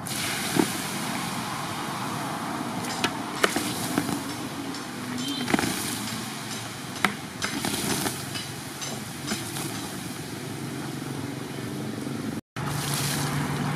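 Hot charcoal steaming and sizzling with a steady hiss after being doused with water, with sharp cracks and pops from the quenched pieces every second or two. A low steady hum joins near the end.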